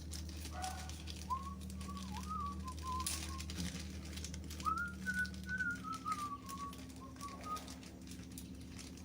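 A person whistling a wandering tune in two phrases, over a steady low hum and faint clicks of small hardware being handled.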